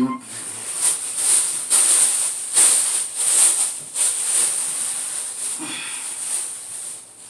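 Plastic bag crinkling and rustling as it is handled, in a string of hissy bursts about once a second.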